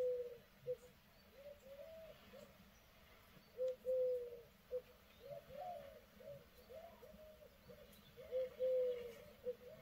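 Doves cooing: a short-long-short coo repeated three times, about every four and a half seconds, with a run of quicker, shorter coos between.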